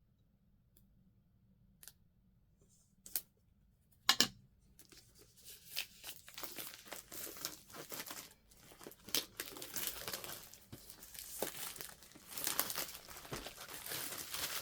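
Packaging on a toy box being torn open and crinkled: a few faint clicks, a sharp snap about four seconds in, then continuous tearing and crinkling.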